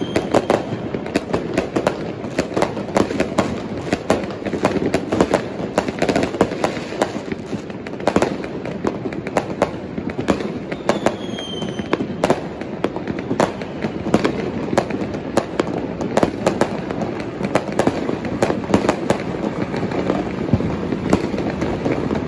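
Fireworks and firecrackers going off all around at once: a continuous dense crackle of bangs and pops, with a short falling whistle about eleven seconds in.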